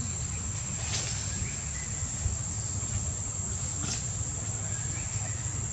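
Outdoor ambience: a steady high-pitched insect drone over a low, even rumble, with faint clicks about one second and four seconds in.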